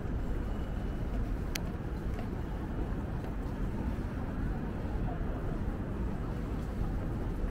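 City street ambience: a steady rumble of road traffic, with a single sharp click about a second and a half in.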